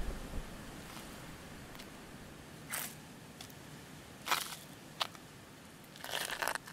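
Faint background hiss with four short scuffing or rustling noises, the last one longer.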